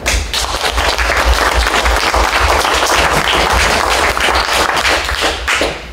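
Audience applauding, many hands clapping at once, tailing off near the end.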